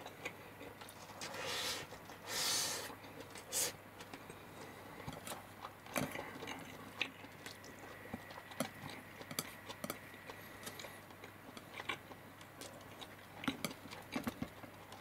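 A person eating chicken and rice: quiet chewing with many small clicks and taps of utensils and the food container, and a few short hissy noises in the first four seconds.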